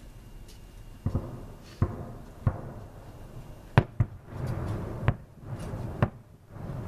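Aerial fireworks shells bursting: a string of seven sharp bangs, the loudest about four seconds in, several trailing off in a low rumble.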